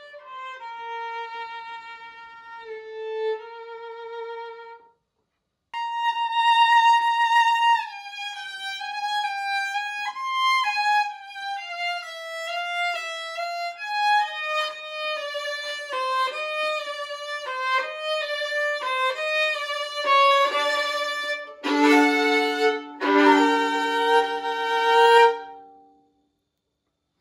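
Solo violin playing a classical passage: a soft phrase, a short break, then a louder passage of moving notes that ends on two loud bowed chords near the end.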